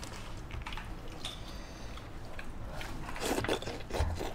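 Faint eating sounds: soft chewing and small clicks while eating beef tripe, with a denser patch of crunchy chewing about three seconds in and a brief low thump near the end.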